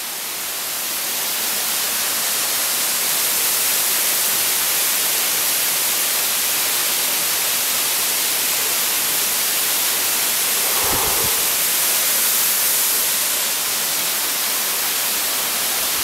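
Waterfall rushing over rock: a steady, loud hiss of falling water, with a brief low bump about eleven seconds in.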